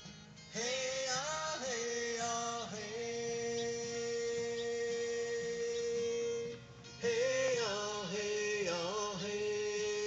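Background music: a melody that slides between notes over a steady guitar accompaniment, in two phrases with a short break about six and a half seconds in.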